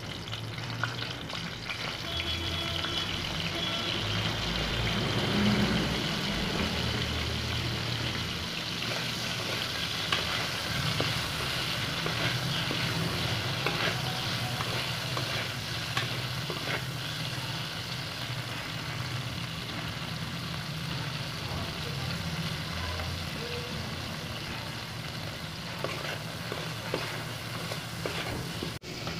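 Cauliflower florets frying in hot oil in an aluminium kadai, sizzling steadily, while a metal spatula stirs them, scraping and clicking against the pan now and then.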